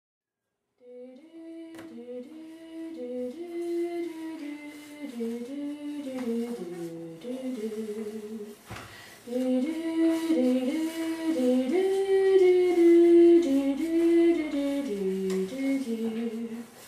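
A single voice singing a slow wordless melody of held, stepping notes, starting about a second in. It breaks briefly midway and then carries on with a louder second phrase.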